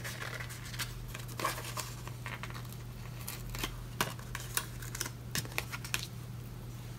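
Sticker sheet being handled close by: crinkling, small clicks and short scrapes as a planner sticker is peeled off its backing. The handling stops about six seconds in.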